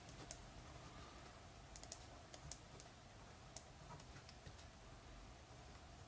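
Faint ticks and light scratching of a pen writing on paper, with a few short taps bunched around the middle, over quiet room tone.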